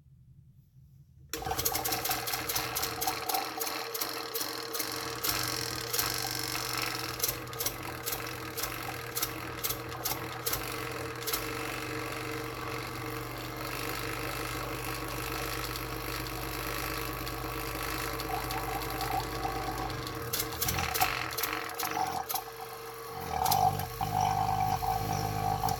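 Robinair 15600 two-stage rotary vane vacuum pump, freshly filled with oil, switching on about a second in and running: a steady hum under a busy clicking rattle that thins out after about ten seconds. The owner suspects the rough running is only a hiccup from the pump sitting drained of oil for a week.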